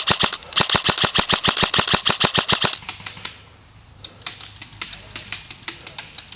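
Airsoft electric rifle firing on full auto, about ten shots a second, in a short burst then a longer one that stops a little under halfway through. Fainter scattered airsoft shots follow.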